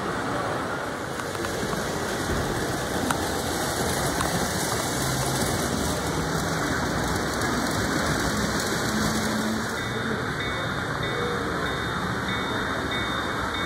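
Steady rumbling hiss of model trains running on layout track, mixed with the general noise of the exhibit hall.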